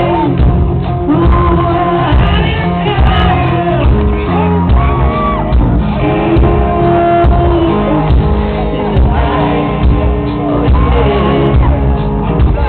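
Live hard rock band playing: a male lead vocal sung and shouted over electric guitar, bass and drums, heard from the audience in a large, reverberant hall.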